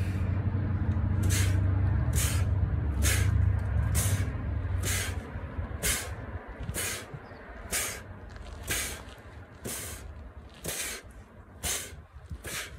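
Fingers driven again and again into a bucket of sand: about a dozen short, gritty hissing strikes, roughly one a second, as the hand shoots in and opens under the sand. A low rumble sits under the first five seconds or so and then fades.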